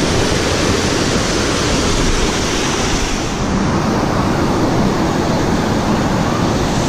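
Steady rush of running spring water.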